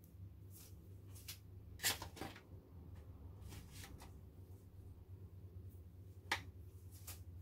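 Scattered light clicks and taps of hands and utensils at kitchen prep work, about nine in all, the sharpest near two seconds in and again past six seconds, over a low steady hum.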